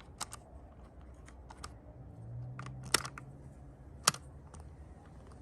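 Irregular plastic clicks of buttons and switches being pressed on a 3D-printed Honda CRX climate control panel, about eight in all, two of them louder, about three and four seconds in.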